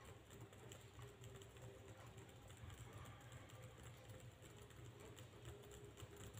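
Faint, rapid clicking of keys on an Advan Soulmate laptop keyboard: a key is being tapped again and again as the laptop boots, to get into the BIOS setup.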